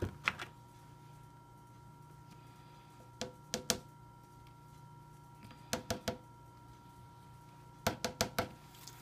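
Spoon clacking against the slow cooker's stoneware insert while stirring, in short clusters of three to five quick taps every two to three seconds.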